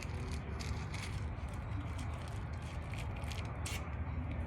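Steady low rumble with scattered light clicks and rattles.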